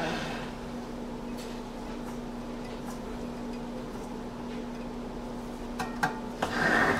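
A plastic soap log splitter being handled as a soap log is set up for cutting: a few light clicks and taps, a small cluster of clicks near the end, then a short scraping sound just before it ends, over a steady low hum.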